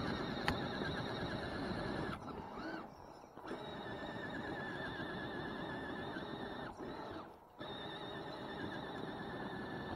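Electric motor and gearbox of an RC scale crawler truck whining steadily under load while it tows. The whine cuts out twice, once about two seconds in and again around seven seconds, as the throttle is let off.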